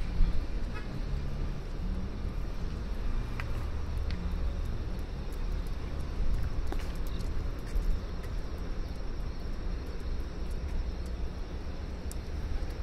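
Outdoor city ambience: a steady low rumble of distant traffic, with scattered faint clicks.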